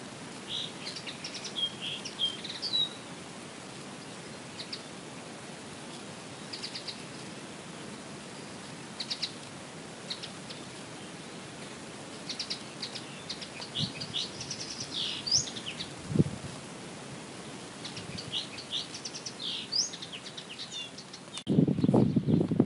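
Songbirds singing in trees and shrubs: short high trills and whistled phrases every second or two over a steady hiss. Near the end the sound changes abruptly to a louder, rough low noise.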